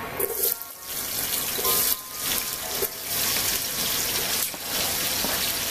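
Sliced onions sizzling as they are pushed into hot frying oil, with a wooden spoon knocking and scraping across a plastic chopping board.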